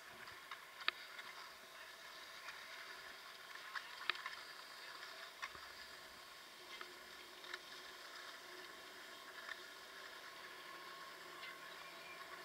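Skis sliding over packed snow: a steady faint hiss with scattered sharp clicks and ticks.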